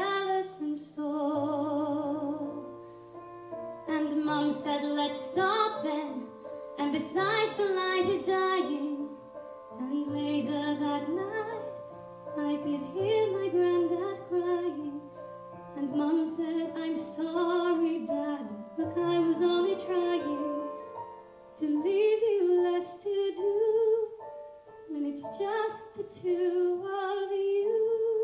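A woman singing a musical-theatre song solo into a microphone, with vibrato, over a sustained instrumental accompaniment; she ends the phrase on a long held note.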